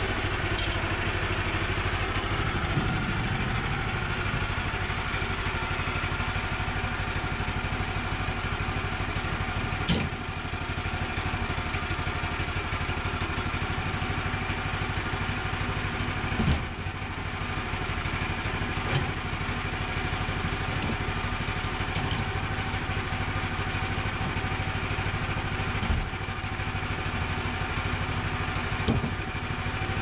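Woodland Mills sawmill engine running steadily throughout, with several short knocks spread through it as wooden bowl blanks are moved about on the mill bed.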